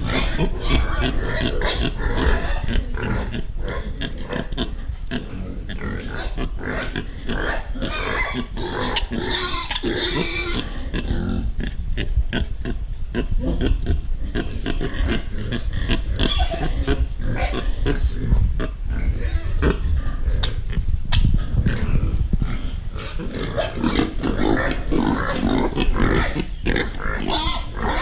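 Domestic pigs grunting, many short sounds in quick succession, with a louder, higher-pitched stretch about eight to ten seconds in.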